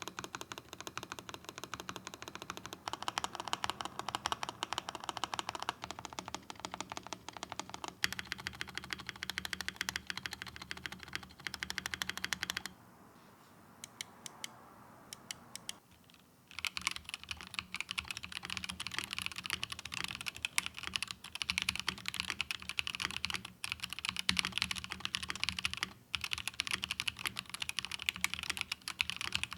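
Rapid typing on a custom 60% mechanical keyboard with Gateron Luciola linear switches and transparent polycarbonate keycaps. The typing pauses for about three seconds around the middle, with only a few single key presses, then carries on fast.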